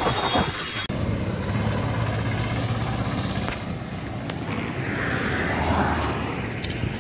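Road traffic: vehicle engines and tyre noise make a steady hum, with a vehicle passing in a swell of noise about five seconds in.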